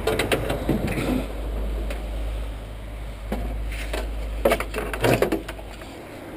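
Scattered knocks and clunks of scrap metal being handled in a pickup truck's bed, a few separate thumps over a low steady rumble that stops near the end.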